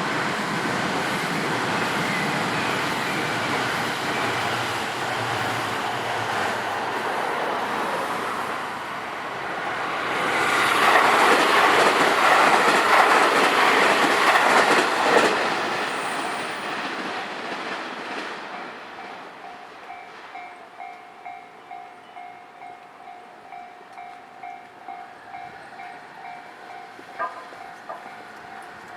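A train passes over the level crossing: wheel clatter and rushing noise build to their loudest in the middle, then fade away. Afterwards the crossing's warning bell is left ringing alone, a steady repeated electronic dinging at about one and a half strokes a second, with two sharp clicks near the end.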